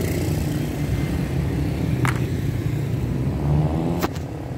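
Steady low rumble of a motor vehicle's engine running. A short click comes about two seconds in, and a sharper knock follows just after four seconds.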